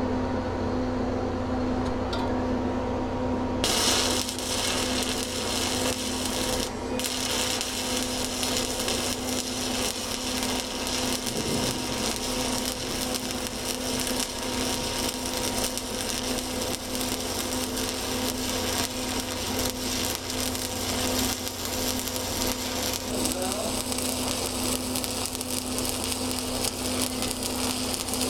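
Stick-welding arc of a 7018 electrode laying the capping pass on an overhead plate joint. The arc is struck about four seconds in, breaks off briefly a few seconds later, then runs steadily over a low steady hum.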